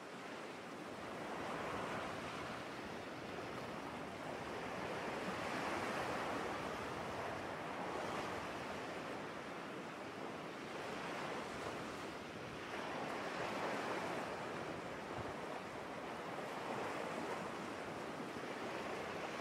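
Sea surf: an even rushing of waves that swells and eases every few seconds.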